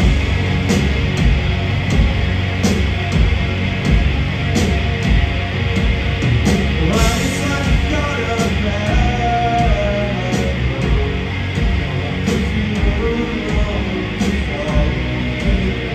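Live punk rock band playing at full volume: distorted electric guitars, bass and drums, with a cymbal struck about once a second.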